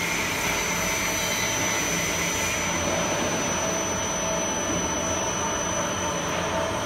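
TSJ-5000L concentric double-axle platform mixer running, its drive turning the central agitator shaft and the wall-scraper frame inside the stainless steel tank: a steady machine hum with a thin high whine.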